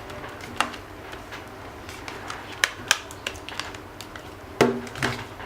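Irregular sharp clicks and light knocks from handling a smartphone and its parts, about five distinct ones. The heaviest comes a little before the end, with a short dull ring after it.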